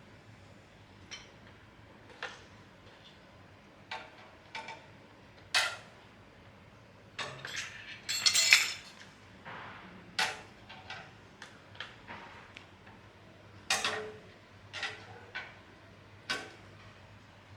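Irregular metallic clinks and knocks of small metal tools and parts being handled, with a louder rattling clatter about halfway through.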